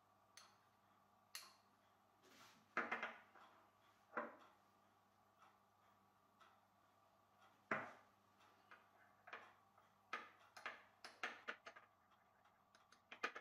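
Small metal spoon tapping and scraping against small glass bowls as thick lotion is scooped and stirred. There are scattered single clinks, then a quick run of small clinks near the end as the stirring starts.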